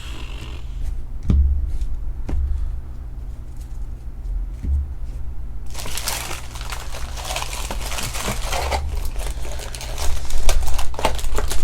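A few soft knocks of things being set down, then from about halfway a dense crinkling and tearing of plastic wrapping, as trading-card packaging is handled and opened.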